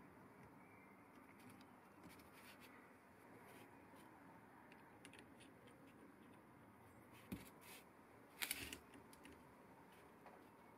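Near silence with a few faint clicks and scrapes of small steel parts being handled, the loudest a short cluster of clicks about eight seconds in.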